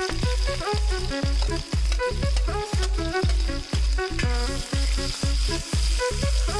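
Sliced onions sizzling in hot oil in a metal pan as they are tipped in and stirred with a steel spatula. Background music with a steady beat, about two beats a second, runs under it and is the loudest part.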